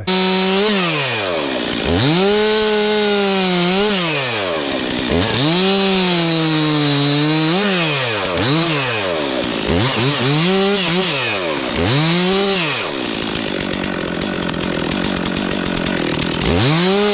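Two-stroke chainsaw being throttled up and down about half a dozen times, its pitch rising to a held high note and falling back each time. About thirteen seconds in it gives way to a steadier, rougher sound, before one last rev near the end.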